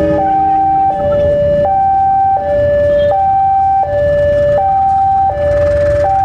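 Railway level-crossing warning alarm: two electronic tones, a lower and a higher, alternating about every three-quarters of a second without a break, over the low running of a diesel locomotive pulling away.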